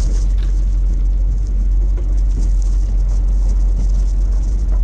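Car driving on the road, heard from inside the cabin: a steady low rumble of road and running noise.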